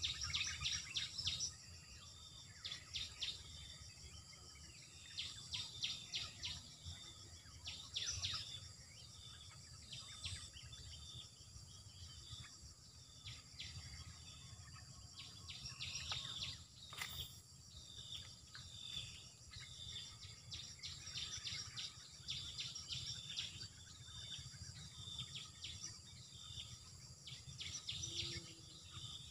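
Wild birds chirping in repeated short bursts over a steady, high-pitched drone of insects.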